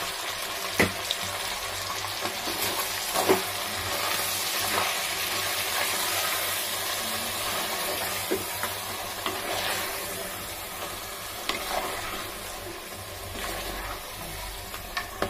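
Mutton, onions and ground masala sizzling in oil in a clay pot while being stirred with a wooden spoon, with a few sharp knocks as the spoon strikes the pot.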